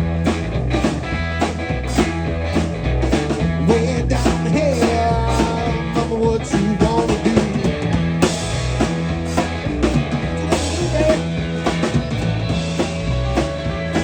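Live blues trio playing: guitar over bass and drum kit, with a steady beat.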